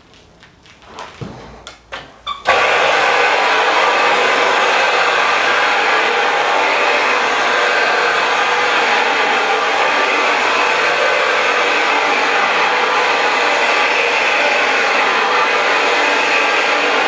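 A corded electric rug-scrubbing machine switches on about two and a half seconds in and runs loudly and steadily as it is pushed over the wet, soapy rug. Before it starts there are a few light knocks.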